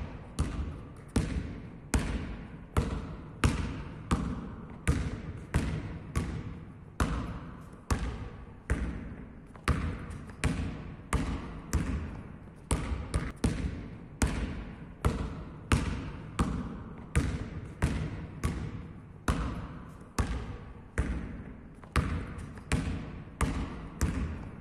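Basketball dribbled on a hard sports-hall floor in a steady rhythm of bounces, each one ringing on briefly in the hall.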